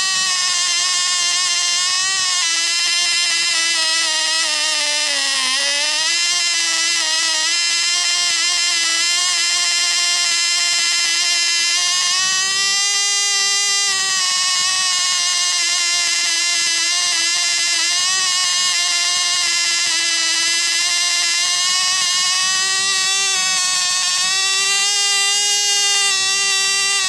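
Tiny Cox .010 two-stroke glow engine running on the ground with a high-pitched buzz during its first running-in. Its pitch dips about five seconds in, then wanders up and down, rising for a while in the middle and again near the end, as the mixture alternates between rich and lean.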